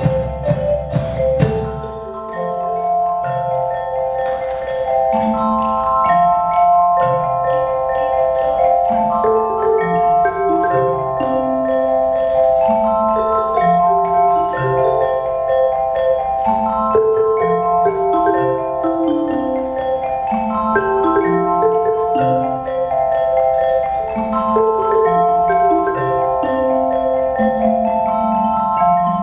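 A youth percussion ensemble on wooden-bar mallet percussion plays chords and a melody over a bass line that steps up and down. Drum kit hits sound in the first two seconds.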